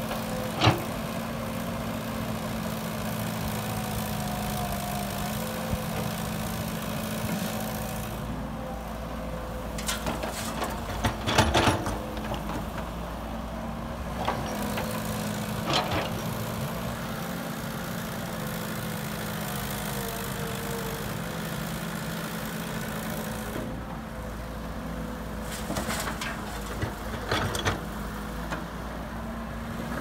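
Diesel engines of a Caterpillar tracked excavator and a dump truck running steadily, the pitch shifting now and then as the excavator works. Sharp clanks and knocks from the bucket loading soil into the truck bed cluster just before the middle, with a few more near the end.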